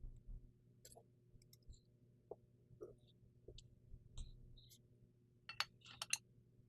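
Faint, scattered clicks and light taps of double-barrel shotgun parts being handled and fitted during reassembly, with a quick cluster of sharper metal clicks near the end.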